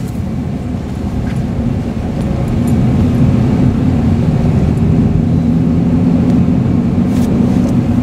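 Honda car driving on a snow-covered road, heard from inside the cabin: a steady low drone of engine and road noise that grows a little louder about two to three seconds in.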